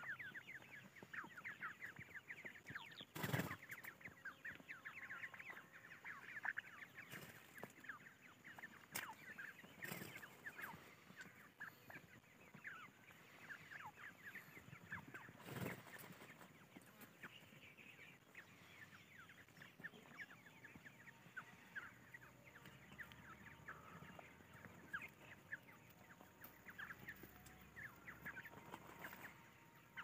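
A family group of grey francolins with chicks giving many faint, short, high peeps that slide downward in pitch, thickest in the first ten seconds or so and then more scattered. Two sharp knocks cut through, a few seconds in and again about halfway through.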